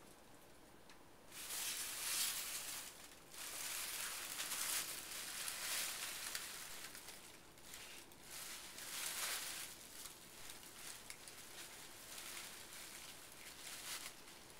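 Thin plastic shopping bags crinkling and rustling as a cat shifts and burrows among them, in uneven bursts that start about a second in.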